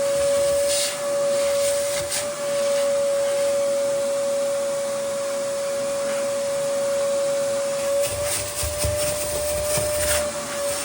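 A steady motor whine at one constant pitch over a noisy hiss, with scattered clicks and scraping sounds that come thicker from about eight seconds in.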